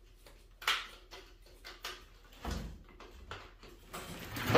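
Scattered knocks and clicks of tools being handled against metal, with a duller thump about halfway and the loudest knock near the end.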